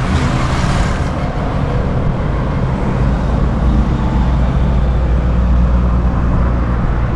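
Road traffic passing on a wide multi-lane road: a continuous rush of noise, with a heavy low rumble that builds about three seconds in.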